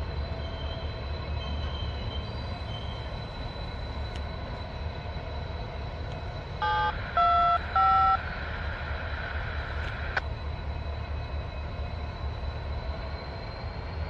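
Norfolk Southern diesel locomotive running with a low, steady engine rumble. About seven seconds in, its multi-chime horn sounds three short blasts, the signal that the train is about to back up.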